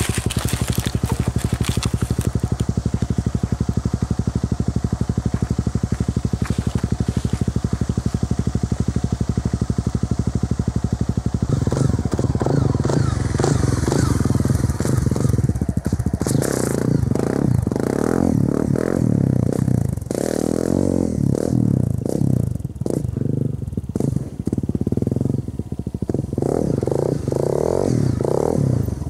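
Honda CRF250L single-cylinder engine with an FMF aftermarket exhaust, running with a steady even beat at first, then growing louder about eleven seconds in as the bike is ridden past, with the revs rising and falling repeatedly through the gears for the rest of the time.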